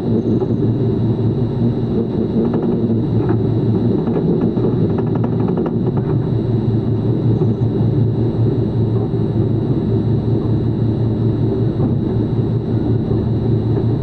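A steady, loud, low machine drone with a faint high whine running through it and a few faint ticks.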